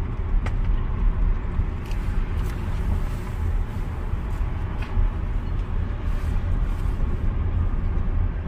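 Steady low rumble of road and tyre noise inside the cabin of a slowly moving Tesla, with a few faint ticks.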